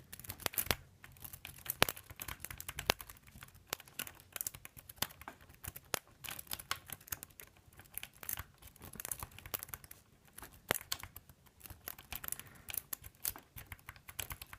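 Metal hook pick scratching and clicking irregularly against the pin tumblers inside a Securit euro cylinder lock as it is picked under tension.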